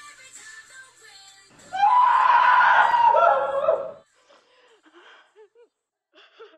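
Faint music fading out, then a loud human scream lasting about two seconds, its pitch sliding down near the end; a few faint short vocal sounds follow.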